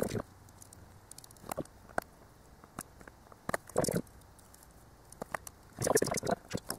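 Handling noise from a small voice-recorder teardown: scattered sharp clicks and taps of small screwdrivers and the recorder's casing being set down and picked up, with a denser burst of rustling and scraping near the end.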